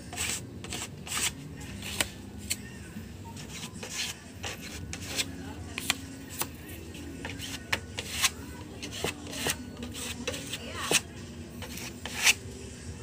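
Hand-held filler spreader scraping polyester body filler across a primed wooden tabletop in repeated short strokes.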